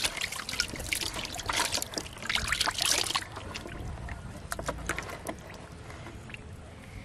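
Water splashing in a plastic tub as a live armored sailfin catfish is let go into it by hand, for about three seconds, then a few drips and small splashes as the water settles.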